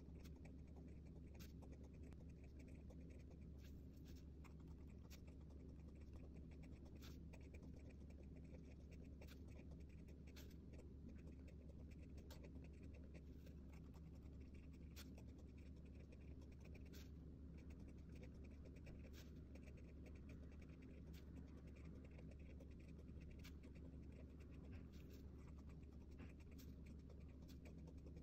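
Faint scratching of a Pigma Micron fineliner tip on notebook paper during handwriting: irregular short strokes as each character is written, over a steady low hum.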